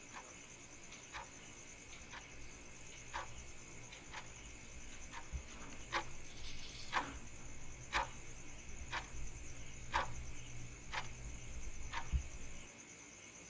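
Analog clock ticking about once a second, with crickets chirping steadily underneath. A low hum runs beneath them and cuts off near the end.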